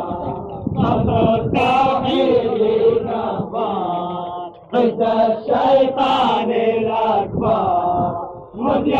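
A group of voices chanting in unison, phrase by phrase, with brief breaks about halfway through and near the end.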